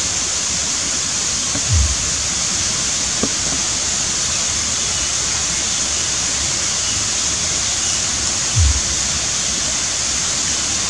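Steady high hiss of outdoor background noise, with two brief low thumps, one about two seconds in and one near the end.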